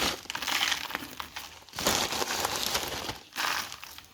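Crinkling and rustling as the meat is handled and salted, in three bursts of about a second each with short pauses between.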